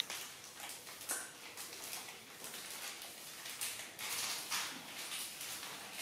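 Soft grass broom sweeping a floor in repeated short, hissing strokes, coming closer together in the second half.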